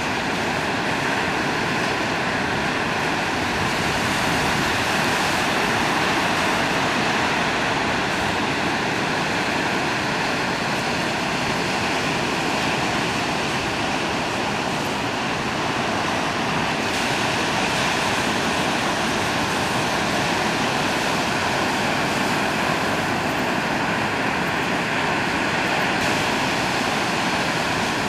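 Heavy ocean surf breaking and washing ashore: a steady rushing of waves.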